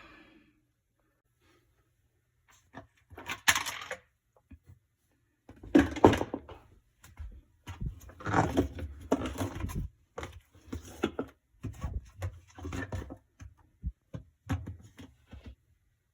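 A run of irregular knocks, clunks and scrapes of things being handled, with the loudest strikes a few seconds in.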